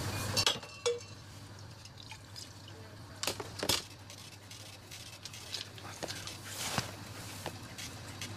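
Scattered clinks and knocks, one ringing briefly about a second in, over a steady low hum.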